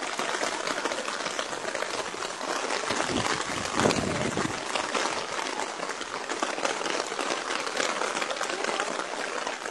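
Steady hiss of water during a flood, rain and rushing floodwater blending into one even noise, with a louder low rumble about three to four and a half seconds in.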